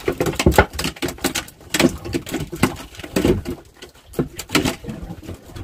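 Irregular knocks and taps of freshly caught fish and fishing line being handled on a wooden boat deck.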